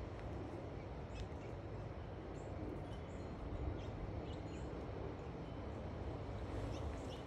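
Scattered short, high backyard bird chirps over a steady low background rumble.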